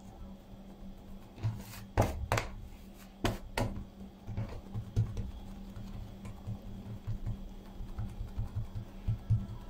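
Hands pressing, folding and patting soft pide dough on a countertop: soft dull thumps and rubbing throughout, with a handful of sharper knocks between about one and a half and four seconds in. A steady low hum runs underneath.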